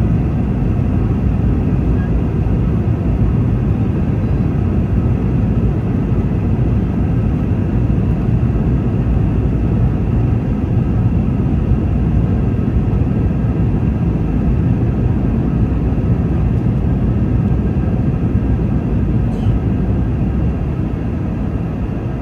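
Steady, loud cabin rumble of a Boeing 717 climbing after takeoff, its twin rear-mounted Rolls-Royce BR715 turbofans at high thrust, heard from inside the passenger cabin, with a faint steady whine above the rumble.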